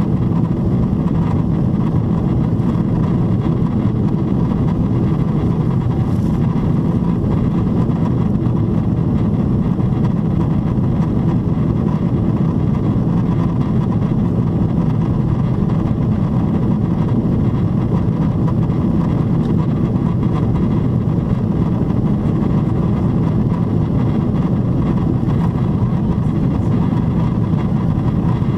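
Steady cabin noise of a Boeing 777-300ER in the climb, heard from a passenger seat: a dense, even low rush of airflow and engine sound that does not change.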